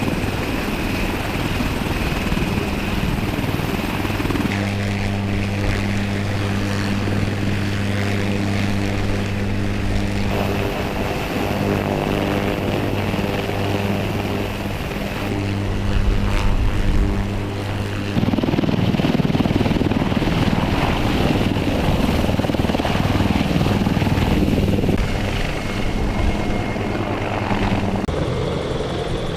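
Military helicopter running, with engine and rotor noise: a steady droning hum for much of the time, a brief louder burst about sixteen seconds in, then a rougher rumble.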